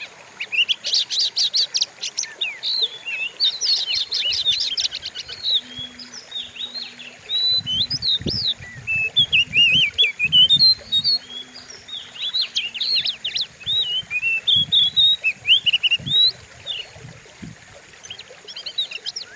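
Oriental magpie-robin (kacer) singing a fast, varied song of rapid trills and sweeping whistled notes with short pauses. Dull low thumps sound through the middle part.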